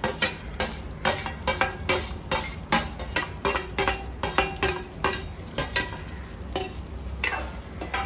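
A steel spoon scraping and clinking against a steel plate and a kadhai, about three sharp clinks a second, fewer near the end, as sautéed soya chunks and vegetables are pushed off the plate and stirred into curd gravy.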